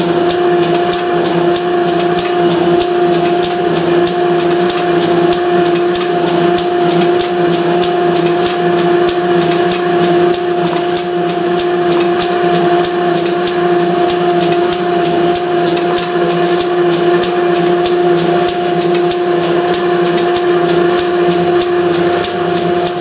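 Steptoe metal shaper running and taking cuts on a metal block: a steady motor and gear whine with regular clicks a few times a second as the ram strokes back and forth.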